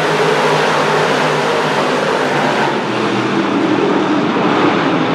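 A pack of 358 small-block V8 dirt modifieds racing past, many engines running together in a loud, steady, continuous blare.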